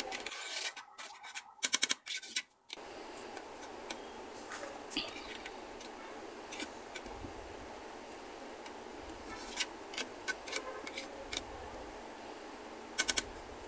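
A metal spatula scrapes and taps against a metal pot of cooked pilaf as the rice is stirred and levelled. It makes scattered sharp clicks, with a quick run of several near the end, over a faint steady hiss.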